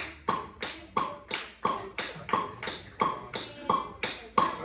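A steady beat of sharp percussive taps, about three a second, each with a short pitched ring.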